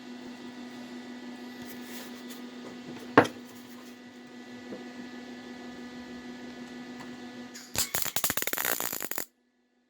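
A steady mechanical hum with one sharp click about three seconds in. Near the end comes a loud burst of rapid clattering that stops abruptly.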